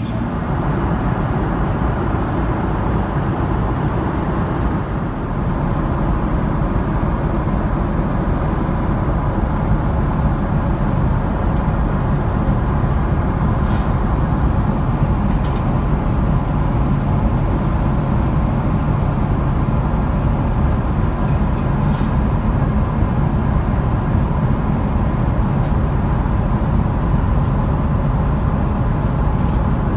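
Steady white noise inside the cabin of a Boeing 777-300ER cruising at flight level 350: an even hiss of airflow over a low rumble.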